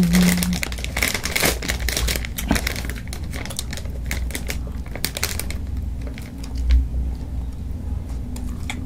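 Close-miked eating noises at a table: a run of quick clicks and crinkling, dense for the first five seconds or so and then sparse.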